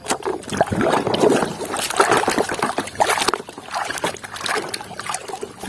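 Water splashing and trickling unevenly as toys are handled and washed by hand in water.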